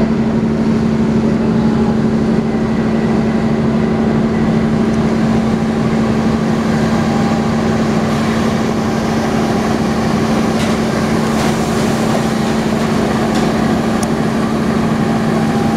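CC206 diesel-electric locomotive running past at low speed, its engine giving a loud steady drone with a constant low hum. A few sharp clicks come in the second half.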